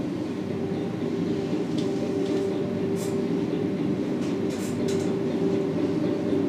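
A steady low drone with a held hum, played over loudspeakers from the soundtrack of a short art film, with a few faint clicks above it.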